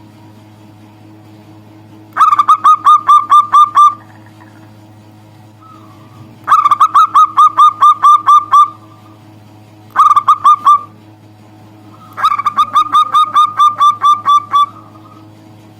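Local zebra dove (perkutut) singing: four loud runs of quick, evenly repeated cooing notes, each run lasting one to two seconds, with pauses of a few seconds between them. A faint steady hum lies underneath.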